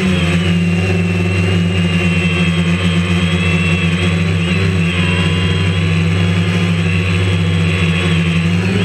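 DJI Phantom quadcopter's four electric motors and propellers buzzing steadily, heard up close through the camera mounted on the drone, the pitch wavering slightly as it flies low.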